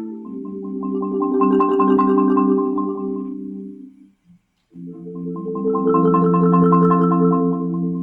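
Solo marimba playing slow rolled chords: two long rolls, each swelling and then fading away, with a short break about four seconds in.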